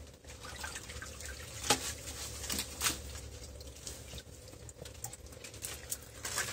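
Water dripping and splashing in small irregular drops, with two sharper splashes about a quarter of the way in and near the middle.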